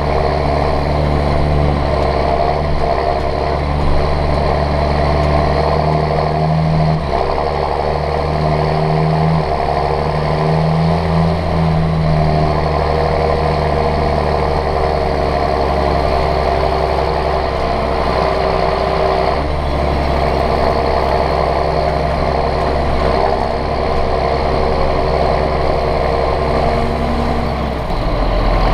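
John Deere 6620 tractor's six-cylinder diesel engine running steadily under load while pulling a plough, heard from inside the cab.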